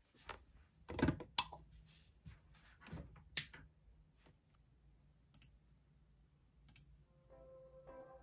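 A few scattered sharp clicks and light knocks, the loudest about a second in and again near a second and a half and three and a half seconds in. Soft background music with plucked notes comes in near the end.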